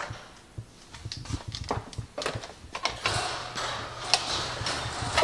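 An interior door opening and footsteps, with a few knocks and clicks, then about three seconds in a garage door opener starts running with a steady mechanical hum.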